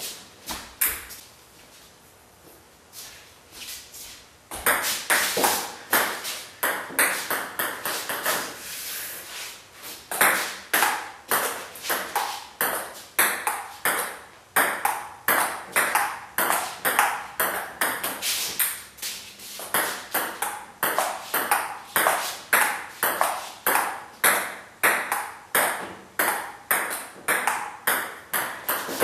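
Table tennis ball clicking back and forth off paddles and the table in a long, quick rally. A few scattered hits come first, then about four seconds in the rally settles into a steady run of sharp clicks, several a second.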